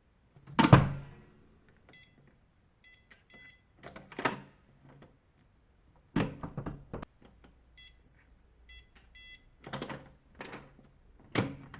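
An electronic fingerprint door lock (WeLock Touch61) giving short high beeps in several quick groups as it reads a finger, between sharp clacks and knocks of the handle, latch and door being worked; the loudest knock comes just under a second in.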